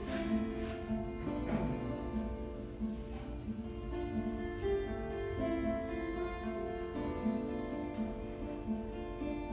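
Classical guitar playing a piece solo, with plucked notes following one another in a continuous flowing line and ringing over each other.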